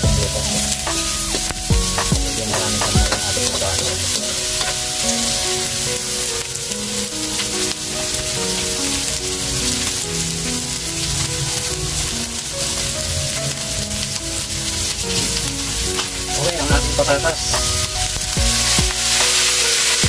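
Chopped onion and garlic sizzling in hot oil in a metal wok, with a metal spoon scraping and clinking against the pan now and then. The sizzle gets louder near the end.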